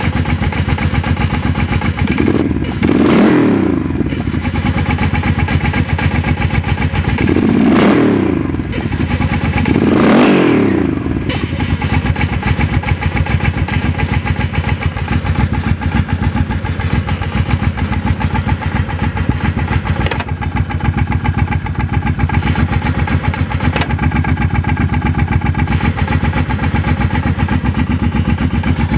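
Motorcycle engine idling with an even beat, revved briefly three times, about three, eight and ten seconds in.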